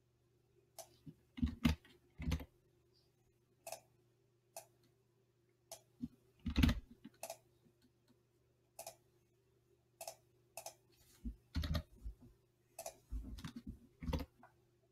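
Computer mouse clicks and keyboard key presses, single and irregularly spaced, a few of them heavier thumps, the loudest about halfway through. A faint steady hum lies underneath.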